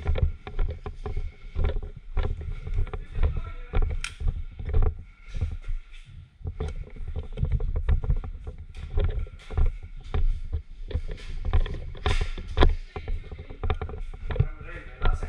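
Irregular knocks, bumps and rustling over a low rumble, with a few sharper clicks: movement and handling noise of a player carrying a camera through an airsoft game.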